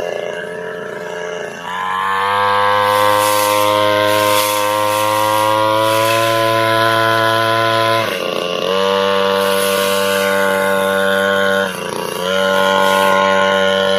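Brush cutter engine running at high revs while cutting grass. It runs lower at first and revs up about two seconds in, then the revs dip briefly and climb back about eight and twelve seconds in.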